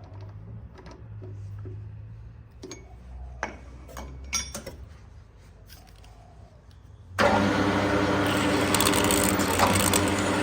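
A few scattered knocks and clicks of metal being handled at the lathe. About seven seconds in, the lathe starts abruptly and runs with a loud, steady hum to deburr the back of the freshly drilled washer.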